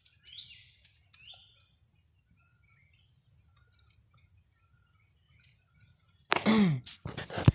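Forest insects keeping up a steady high whine that lifts briefly about every second and a half, with two short falling bird chirps about a second apart near the start. Near the end comes a loud, low, falling vocal sound, then a few sharp knocks.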